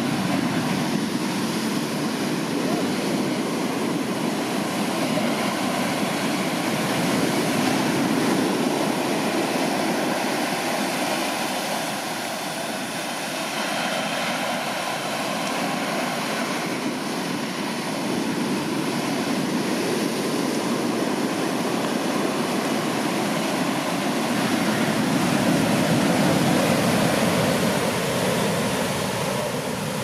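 Large surf breaking and washing up the beach: a continuous rushing roar of whitewater that swells and eases, louder about a quarter of the way in and again near the end.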